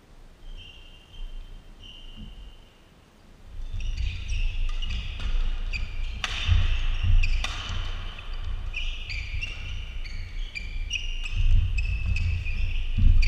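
Badminton doubles rally: rackets striking the shuttlecock again and again, sharp crisp hits, over sports shoes squeaking on the court floor and heavy footfalls. The play is quieter for the first few seconds, then grows louder and busier from about three and a half seconds in.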